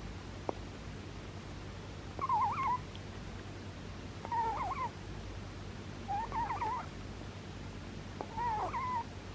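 Sleeping rabbit snoring: four short, wavering squeaky whistles, evenly spaced about two seconds apart.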